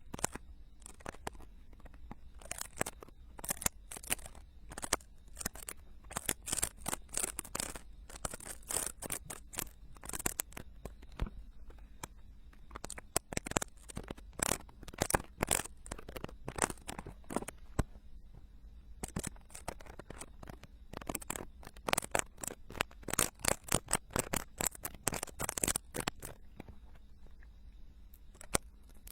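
Ear-cleaning tools scraping and picking inside a silicone binaural ear microphone, close and crunchy: dense, irregular rapid scratches and clicks, with a couple of brief lulls.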